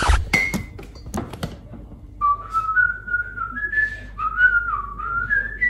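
A person whistling a wandering tune, starting about two seconds in, after a few light knocks.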